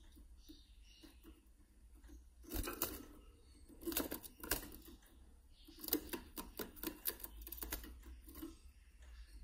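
Caged male black-chinned siskins: irregular bursts of dry clicking and rattling, with faint high twittering notes between them.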